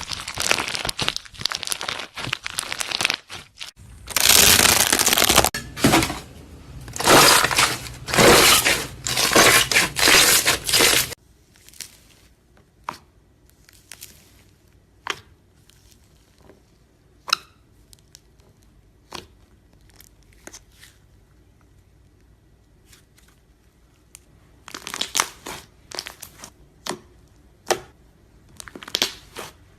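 Slime being squeezed and worked by hand. Dense crackling and crinkling runs for about the first ten seconds, then single scattered pops and clicks, then another run of crackling near the end.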